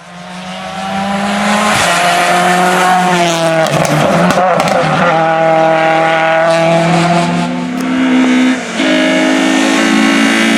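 Hillclimb race car's engine running hard at high revs, fading in and holding a loud, high note that steps in pitch several times as it shifts gears, with a brief dip near the end at a gear change.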